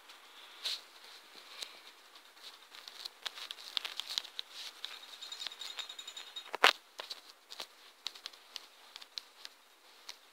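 Irregular light taps of fingertips typing on a tablet's touchscreen keyboard, with one sharper knock about two-thirds of the way through.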